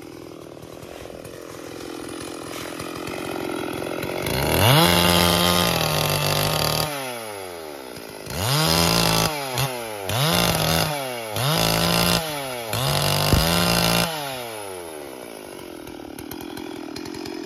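Stihl MS440 two-stroke chainsaw idling, then opened up to full throttle for about two seconds, then blipped to full speed in several quick bursts, each falling back to idle, before settling to a steady idle near the end.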